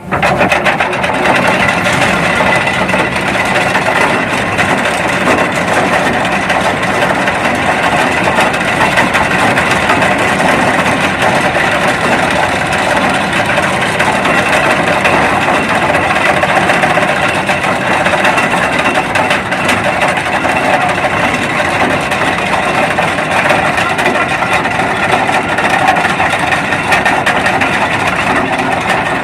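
Ship's anchor chain running out fast as the anchor is let go, a loud, dense, continuous rattle that starts abruptly and keeps up without a break.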